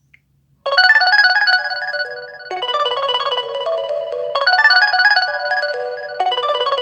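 A classic LG ringtone playing from an LG G8 ThinQ smartphone. It starts suddenly after a short silence, a melody of quick short notes whose phrase repeats about every two seconds.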